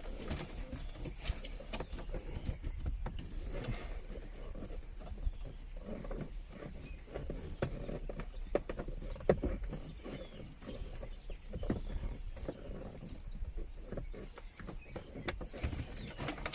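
Hands working cables and plastic interior trim in a car's dash and centre console: scattered small clicks, taps and rubbing scrapes, with a low steady hum under them.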